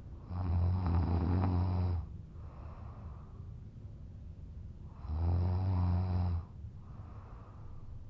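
A man snoring in deep, drunken sleep: two long, loud snores about five seconds apart, each lasting about a second and a half, with a softer breath between them.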